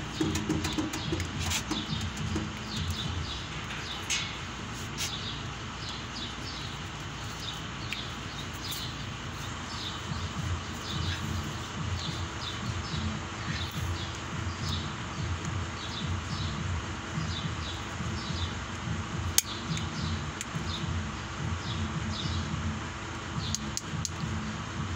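Small birds chirping repeatedly, most busily in the first half, over a steady low rumble, with a few sharp clicks.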